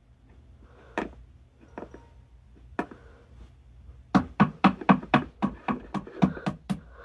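Hard toy figurine tapped on a tabletop to act out footsteps: a few single taps, then a quick run of about a dozen taps in the second half.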